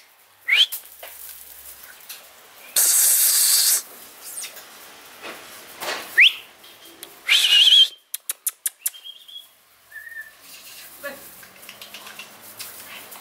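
Attention-getting noises made at puppies: two short, sharp rising whistles, two loud hissy squeaks, one with a wavering squeal near the middle, and runs of quick clicks after it.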